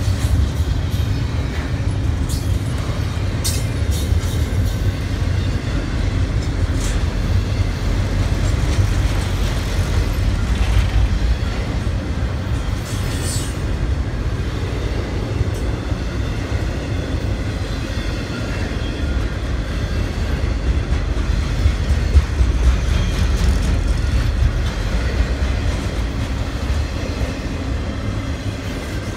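Freight train rolling past: a steady low rumble of wheels on rail, with scattered clicks and clacks as the wheels cross the rail joints.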